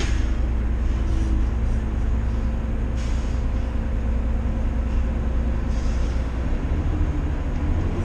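Detroit Diesel 6V92TA two-stroke V6 diesel of a Gillig Phantom transit bus running steadily, a deep drone heard from inside the bus. Two brief hisses about three and six seconds in.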